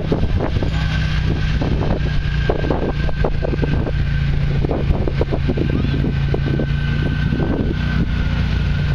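A four-wheeler ATV's engine running steadily at low speed while it tows a pulling tractor, with a constant hum and a steady high whine.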